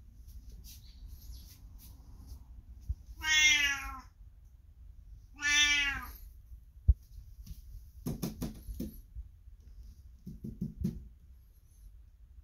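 An elderly 22-year-old house cat gives two loud, drawn-out meows about two seconds apart, calling out to a person passing by. A sharp click follows, then a few shorter, lower sounds.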